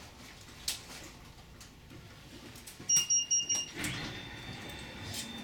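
Short electronic beeps, three or four in quick succession, from the funicular car's cab. About a second later a steady high-pitched whine sets in over a rise in background noise.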